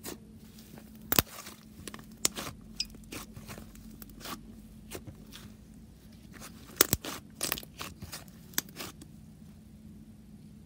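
Thick butter slime made with clay being pressed flat, stretched and pulled apart by hand, giving scattered sharp pops and clicks with soft tearing. The loudest pops come about a second in and near seven seconds. A faint steady low hum runs underneath.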